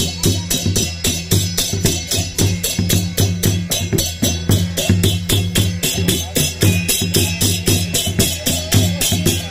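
Music with fast, even drumming, about five beats a second, over a steady deep bass.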